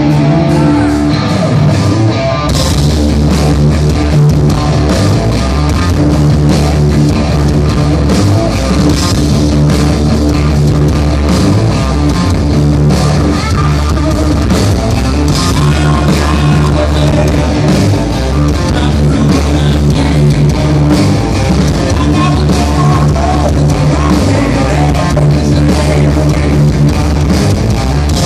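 Hard rock band playing live in a concert venue, loud: an electric guitar riff, joined about two and a half seconds in by the full band with drums and cymbals, then a steady driving rock groove.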